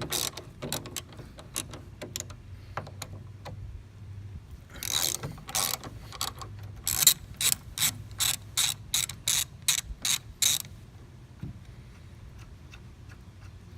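Hand ratchet with a T50 Torx bit clicking as it backs out the door hinge bolts: irregular runs of clicks, then a steady run of about three clicks a second that stops a few seconds before the end.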